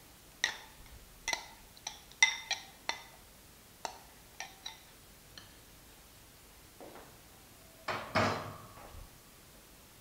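A steel ladle clinks and taps against glass bowls as spinach paste is scraped from a small glass bowl into a glass casserole. There are about ten sharp clinks in the first five seconds, a few of them ringing briefly. About eight seconds in comes a longer, louder scraping clatter.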